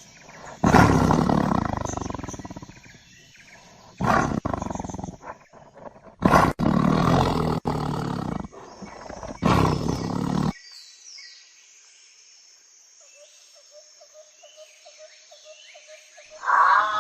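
A wild animal roaring loudly four times in the first ten seconds, the first roar long and fading. Faint bird calls follow, and music comes in near the end.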